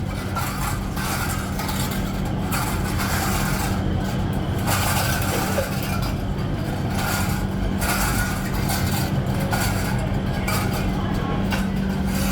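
Workshop machinery running: a steady hum under a dense, rough noise that swells and dips irregularly every second or two, typical of metal being worked on a powered machine.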